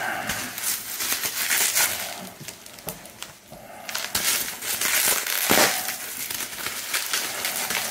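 Packaging being crinkled and rustled by hand as a package of comic books is unpacked, with a short lull about three seconds in before the rustling picks up again.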